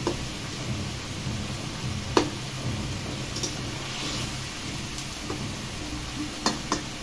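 Thin potato, tomato and hilsa curry simmering in a karahi, with a steady low sizzle. A metal spatula stirring it clicks against the pan a few times, loudest about two seconds in.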